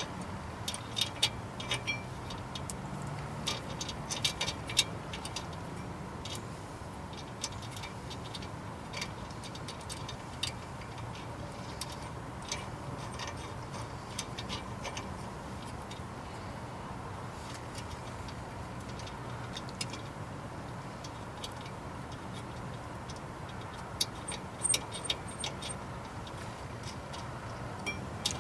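Scattered small metallic clicks and ticks, bunched in the first few seconds and again near the end, as a push bolt, washers and nuts are fitted by hand at the brake caliper bracket to press a seized brake rotor off the hub, over a steady low hum.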